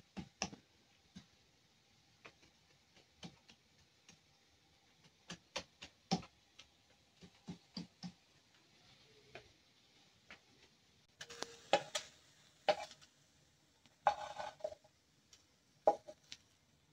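Kitchen knife chopping salsa on a maguey leaf: irregular sharp taps, with two short bursts of quicker chopping and scraping past the middle.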